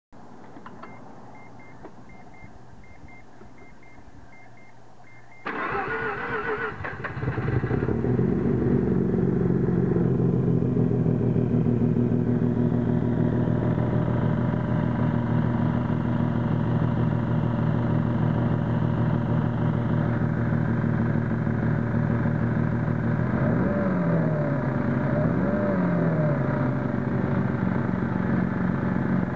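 Mazda RX-7 FD's twin-turbo 13B-REW rotary engine being cranked by the starter for about two seconds until it catches, then idling rough, with two short revs about three-quarters of the way in. Before the start a repeating high beep sounds, such as a dash warning chime.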